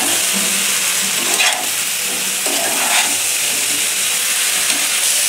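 Chunks of young jackfruit and prawns sizzling in hot spiced masala in a nonstick kadai, with a steady hiss. A metal spatula stirs and scrapes them round the pan, with a few sharper scrapes about a second and a half and three seconds in.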